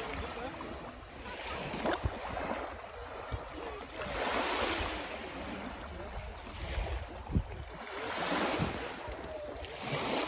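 Small waves washing up onto a sandy shore, swelling and fading every few seconds, with wind rumbling on the microphone and a few short knocks.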